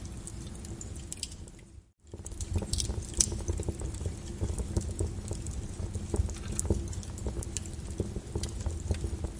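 Wood fire in a fireplace crackling and popping irregularly over a low rumble of flames. The sound dips briefly almost to silence about two seconds in, then comes back.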